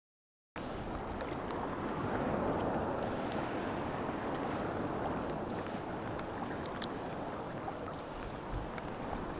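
Water swishing and lapping around a folding sea kayak as it is paddled, with small drips and splashes and some wind on the microphone. It starts after about half a second of dead silence.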